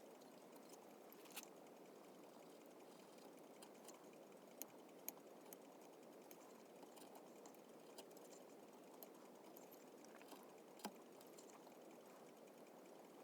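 Faint, sharp clicks of carving tools cutting into cherry wood, a few scattered at uneven intervals over a steady low hiss.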